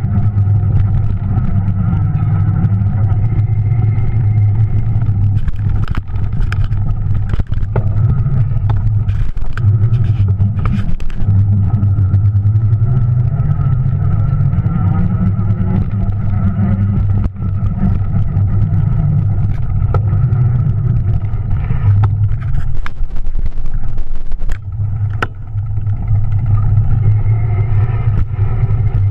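Electric motor of a Juiced RipCurrent S e-bike running as it rides a rough dirt trail. A steady low hum with a higher whine is carried straight into the camera through a rigid aluminum handlebar mount. It drops out briefly a few times, with scattered knocks and rattles from bumps.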